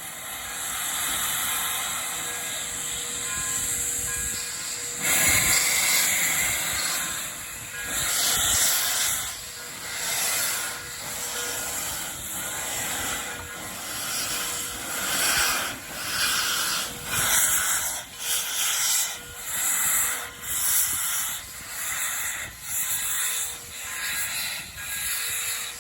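Steam locomotive hissing, then chuffing in an even rhythm of about one exhaust beat a second that quickens slightly toward the end, as it gets under way.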